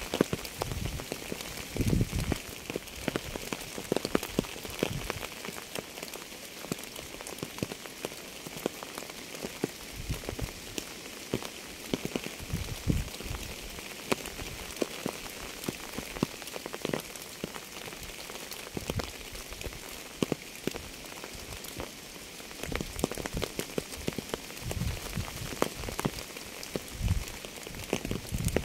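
Steady rain falling, with many sharp individual drop hits close by and, every few seconds, a duller, deeper drop hit.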